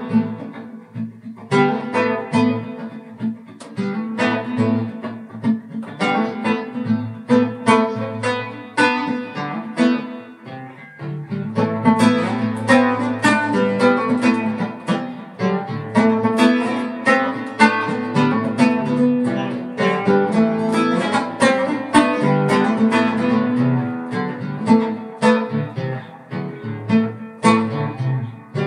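Instrumental guitar music: plucked strings sounding notes in quick succession, thinning out briefly around the middle.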